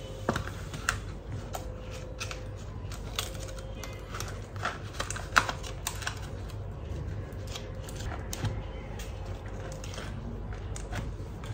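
Scattered small clicks and light handling noises as a homemade two-piece mini radiant diffuser and reflector are fitted by hand onto the head of a Godox V350 speedlight flash.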